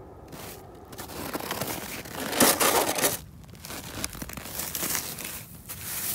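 Snow crunching and scraping in a series of rough, irregular bursts, loudest about two and a half seconds in, as a gloved hand digs into packed snow around a toy truck.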